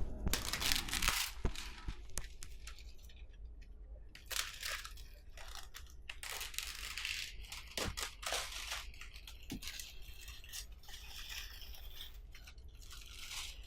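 Headphone packaging being unboxed by hand: irregular tearing and rustling of plastic wrap and cardboard, with a few sharp clicks.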